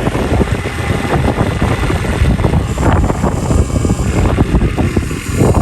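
Excavator running continuously: a loud, dense machine noise with a rapid low pulsing.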